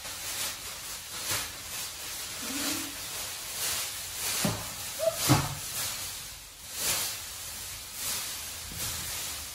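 Thin plastic masking sheeting rustling and crackling as it is unfolded and shaken out, in irregular swishes, with a few low thumps near the middle.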